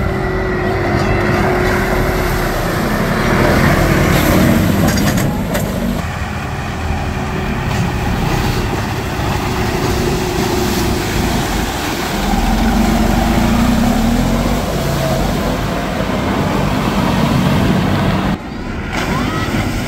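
Fendt tractor's diesel engine working hard as it ploughs through deep mud and muddy water, the engine note rising and falling. There is a sudden drop in sound near the end.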